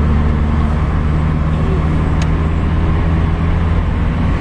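Chevrolet Corsa Classic's four-cylinder engine running at a steady speed, with road noise, heard from inside the closed cabin as the car drives.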